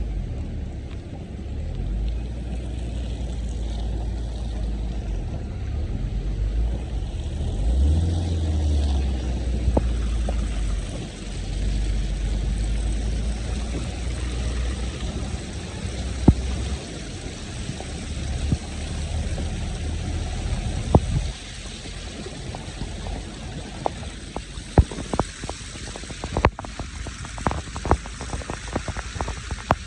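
A vehicle's low, steady road rumble, which drops away about two-thirds of the way through, followed by scattered sharp ticks.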